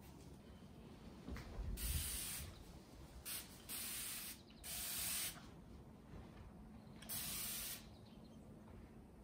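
Trigger spray bottle misting a hanging plant with water: five short hissing spritzes, four close together and the last after a pause of about two seconds.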